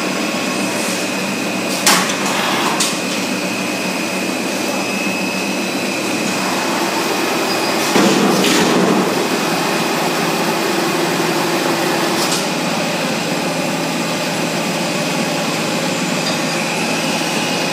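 High-speed stretch film production line running: a steady mechanical hum with a steady high whine, broken by a couple of sharp clacks about two seconds in and a louder burst of noise about eight seconds in.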